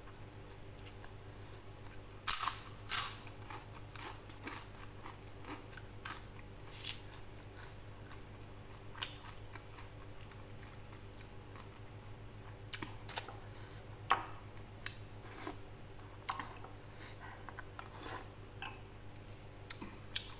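Rempeyek (Indonesian peanut crackers) being broken by hand and chewed, in irregular crisp snaps and crunches. The two loudest snaps come a couple of seconds in.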